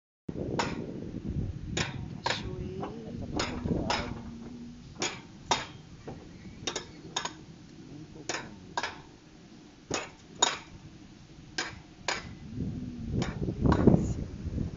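Alpine coaster sled rolling along its metal rail, its wheels clicking over the rail joints in pairs about every second, over a low rumble that swells near the end.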